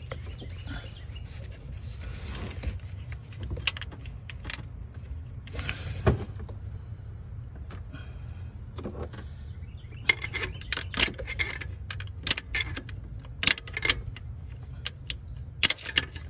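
Metal hand tools clicking and clinking on fasteners in an engine bay as a 10 mm bolt is worked loose. The sharp, irregular clicks are sparse at first and come thick and fast in the last six seconds, over a steady low hum.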